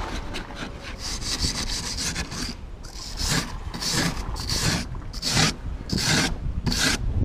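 A thin metal blade scraping and rasping along a fibreglass yacht's hull-to-deck joint in quick repeated strokes, roughly two a second. It is working out the seam where the boat is suspected of leaking, ahead of resealing it.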